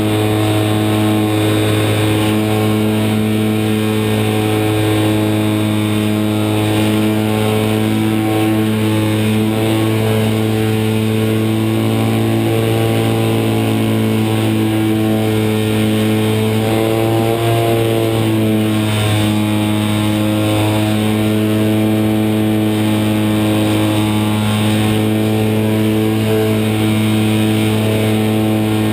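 HobbyZone Super Cub's electric motor and propeller running steadily under power, picked up by a camera mounted on the plane itself. The pitch rises briefly and falls back about two-thirds of the way through.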